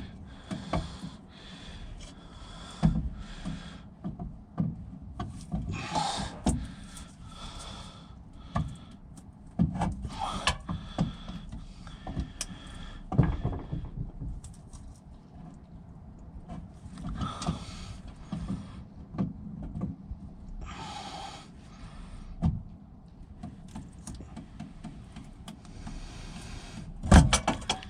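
Hand tool tightening the cap of a diesel fuel filter housing: scattered knocks, clicks and short scraping bursts as the cap is turned down tight.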